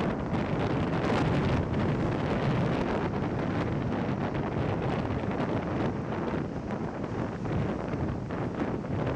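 Wind buffeting the microphone over breaking lake surf: a steady rushing noise with small irregular gusts.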